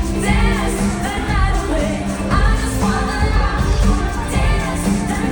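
A female pop singer singing live over an amplified band or backing track at a concert sound check, with a strong steady bass under the vocal line.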